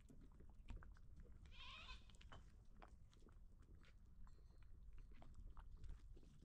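Near silence, with faint scattered ticks and, about a second and a half in, a faint short animal call.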